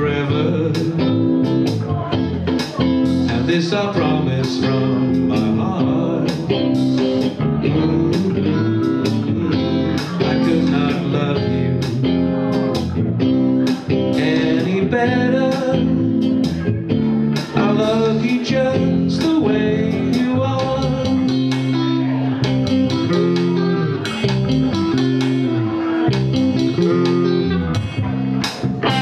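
Blues instrumental played live by an electric guitar and bass guitar, with a wailing lead line from a harmonica played into a cupped hand-held microphone.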